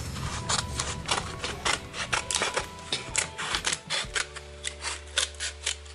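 Scissors cutting paper close around the edge of a glued toothpick rose: a quick run of snips, about three a second, over a faint steady hum.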